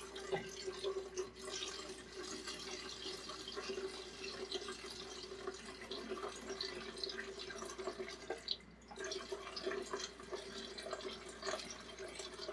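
Melted candle wax running in a thin stream from a wax melter's spigot into a metal pouring pitcher, with small drips. The melter is nearly empty and is tipped to drain it, and the stream thins out briefly past the middle.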